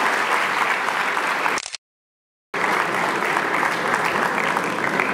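Audience applauding steadily, with the sound cutting out completely for under a second partway through before the clapping resumes.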